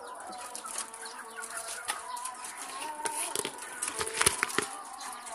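Poultry clucking and chirping, with a few sharp knocks about four seconds in.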